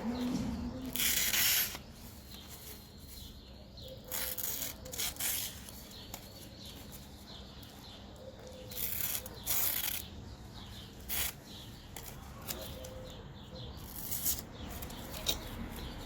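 A folding knife's blade making brief scraping, rubbing strokes a few seconds apart, about eight in all, as its edge is tried for sharpness.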